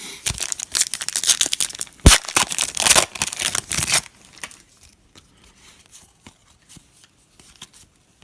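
A trading-card pack wrapper being torn open and crinkled for about four seconds, with a sharp snap about two seconds in, then faint rustling as the cards are handled.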